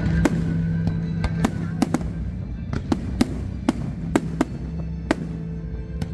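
Aerial fireworks going off in more than a dozen sharp bangs at irregular intervals, with music playing underneath.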